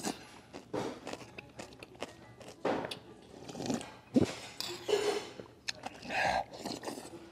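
A person slurping soup broth from a spoon and sipping it straight from the bowl, about six short slurps spaced a second or so apart.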